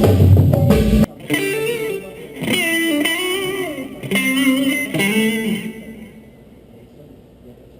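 A drum kit plays for about a second and cuts off; then an electric guitar plays a few short lead phrases with bent notes during a band's sound check, and stops about two seconds before the end, leaving faint background noise.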